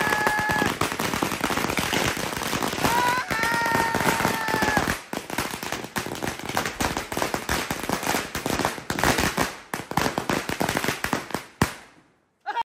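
Firecrackers going off in a rapid, dense run of cracks, thinning out after about five seconds and dying away to silence near the end. A steady whistle sounds briefly at the start and again for about two seconds, from about three seconds in.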